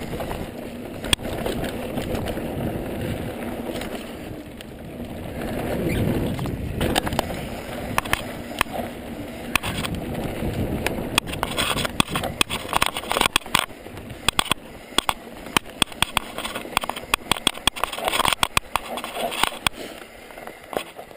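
Ibis Mojo mountain bike descending a dry dirt trail: tyres rolling over the dirt with a low rumble for the first several seconds, then, from about seven seconds in, frequent sharp rattles and clacks as the bike runs over rough ground.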